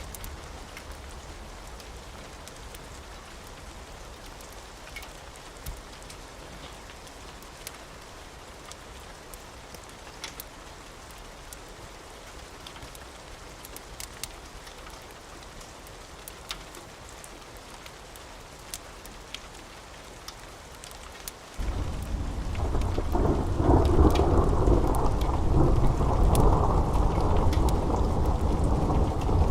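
Steady rain hissing, with scattered sharp crackles. About three-quarters of the way through, a loud, low rolling rumble of thunder starts suddenly and carries on.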